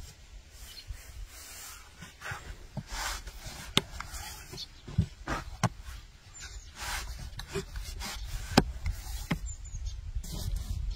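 Scattered light clicks and knocks over soft rubbing and scraping: hand-work sounds of food preparation.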